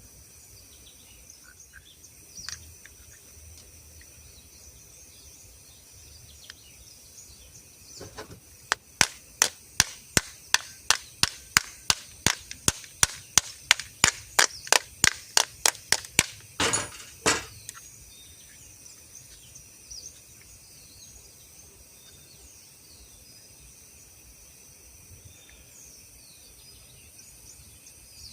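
A run of about twenty sharp knocks at an even pace, about three a second, followed by two longer scraping sounds, over a steady chirring of crickets.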